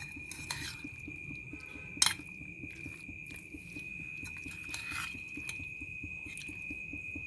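Oil heating in a kadai, with faint, dense crackling. A steady high whine runs throughout, and there are two sharp clinks, one at the start and one about two seconds in.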